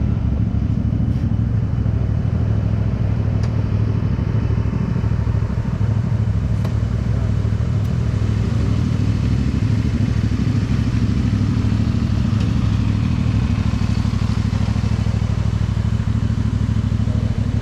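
Motorcycle engine running at a steady cruise while riding, with wind rush over the microphone.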